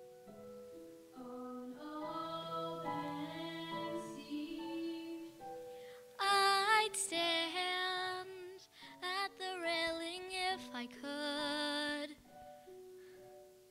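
Instrumental accompaniment playing sustained notes and chords. About six seconds in, a girl's solo singing voice with vibrato comes in over it, in short phrases with brief breaks.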